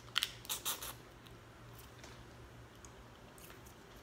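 Close-up eating sounds: biting and sucking on a boiled crawfish, with a few sharp cracks or slurps in the first second, then quieter chewing with faint clicks.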